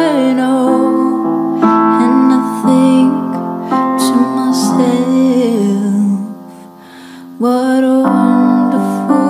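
Background music: a slow piano-led song, softening briefly about two-thirds of the way through before the piano comes back in.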